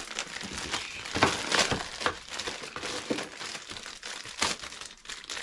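Thin clear plastic bag crinkling and crackling in irregular bursts as an action figure is pulled and worked out of it by hand.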